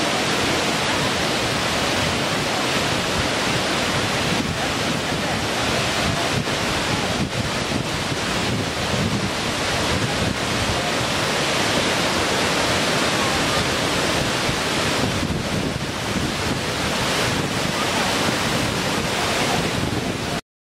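Waterfall cascading over rock ledges: a loud, steady rush of falling water that cuts off suddenly near the end.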